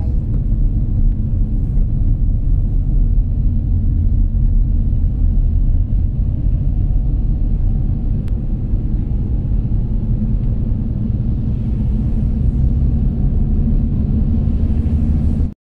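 Steady low road and engine rumble inside a moving car's cabin. It cuts off abruptly near the end.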